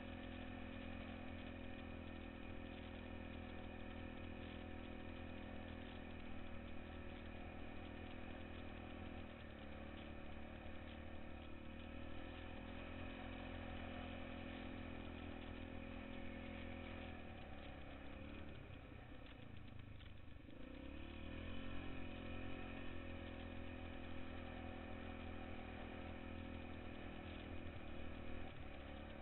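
ATV engine running steadily while riding along a snowy road. The engine eases off about 18 seconds in, then picks up speed again, louder, a few seconds later.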